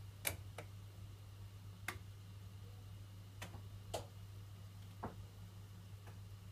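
Faint, sharp clicks at irregular intervals, about seven in all, as the wheels of a Bachmann Doodlebug model motor car run over the rail joints of a model railroad track, over a steady low hum.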